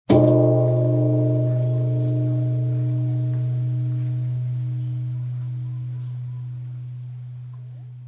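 Vietnamese temple bell struck once, then left to ring. A deep steady hum and several higher tones fade slowly over the following eight seconds.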